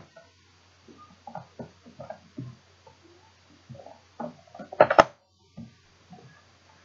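Plastic parts of a Nerf Modulus blaster being handled and fitted together: a run of light knocks and clicks, with one loud sharp click about five seconds in.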